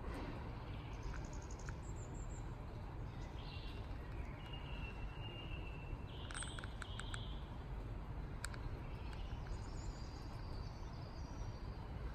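Outdoor ambience: scattered short bird chirps and whistles over a steady low background rumble, with a few faint sharp clicks about halfway through.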